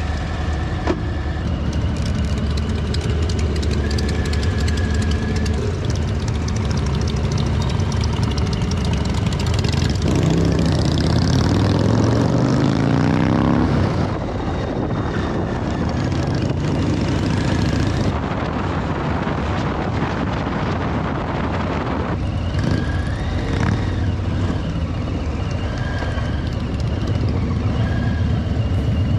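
Motorcycle engine running under way, with steady road and wind noise; the engine pitch climbs and falls between about ten and fourteen seconds in.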